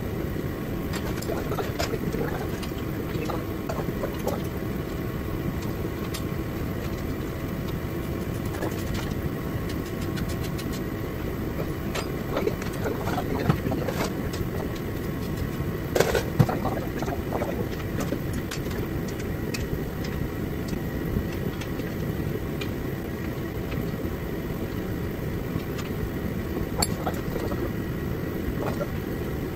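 A steady mechanical hum and rumble throughout, with a few short sharp clicks of hand tools and bolts being worked, the loudest about sixteen seconds in.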